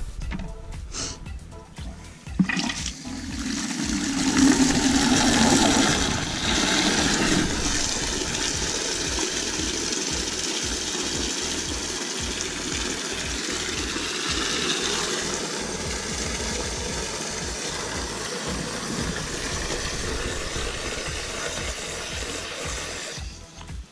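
Water running from an outdoor wall tap into a plastic bucket. It starts about two and a half seconds in, is loudest for the first few seconds, then runs steadily and stops just before the end.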